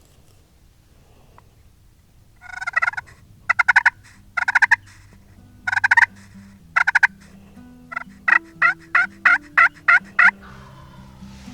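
Wild turkey gobbling: five loud rattling gobbles in quick succession, then a run of about eight short, evenly spaced calls. Soft background music plays underneath.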